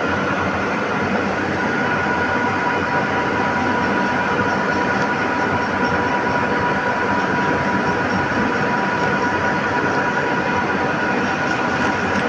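Steady, unbroken running noise with a couple of constant high whining tones laid over it, like a vehicle or machine running evenly.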